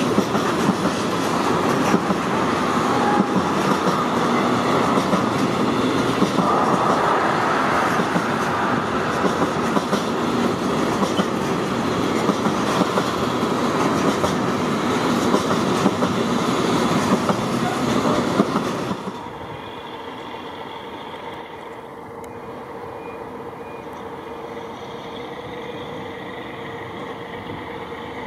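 Long freight train of pocket wagons carrying semi-trailers rolling past, its wheels and wagons rattling with a clickety-clack. About two-thirds of the way in this cuts off suddenly to a quieter, steady sound with a faint hum, a diesel shunting locomotive moving passenger coaches.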